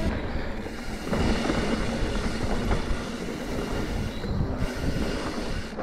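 Mountain bike riding fast over rough dirt singletrack: a steady, dense rattle from the bike and its tyres on the trail.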